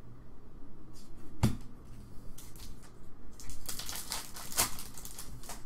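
Trading cards and a pack wrapper being handled: one sharp tap about a second and a half in, then a quick flurry of crinkling and clicking around four seconds in.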